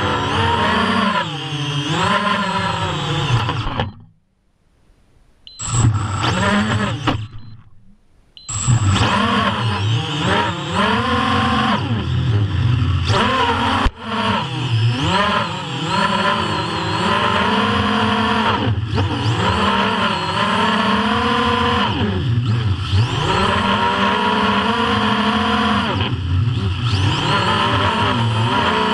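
FPV quadcopter's brushless motors and propellers running, their pitch rising and falling constantly with throttle. The sound drops to near silence twice, about four seconds in and again just before eight seconds, and there is one sharp click about fourteen seconds in.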